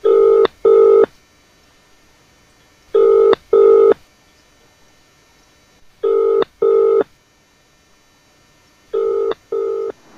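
Telephone ringing in the British double-ring pattern, two short rings then a pause, four times about three seconds apart, the last pair a little quieter.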